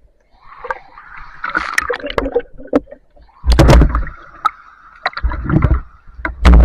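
Water gurgling and sloshing with scattered clicks, and three loud low surges of water noise in the second half.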